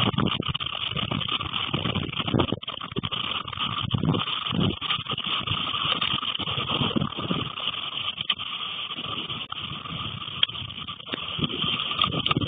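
Strong gusty wind buffeting the microphone in rising and falling rumbles, over a steady hiss, with a sharp tick about ten seconds in.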